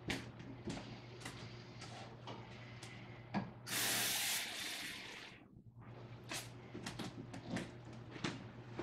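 Kitchen sink tap turned on, water running for about a second and a half about four seconds in, then shut off, among light clicks and clinks of handling things at the sink. A steady low hum sits underneath.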